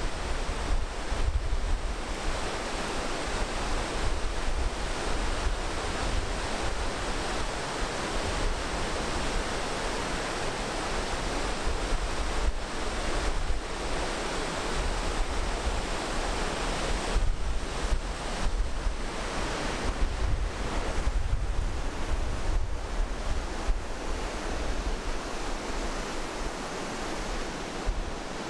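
Mountain river rushing through a narrow rock gorge in whitewater rapids, a loud, steady rush of water, with gusts of wind buffeting the microphone.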